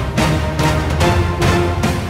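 Background music with a steady beat, about two beats a second, over a heavy bass line.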